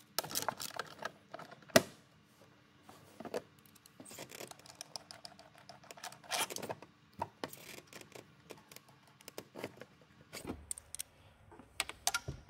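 Hand tools clicking and clinking against metal in an engine bay, scattered light taps with one sharp clack a little under two seconds in, as the bolts of the timing-belt cover are worked loose.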